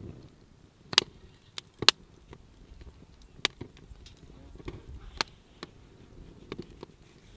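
Sharp, irregular ticks and taps, about seven in all, as ground spice is sprinkled by hand over raw lamb ribs on a wooden board.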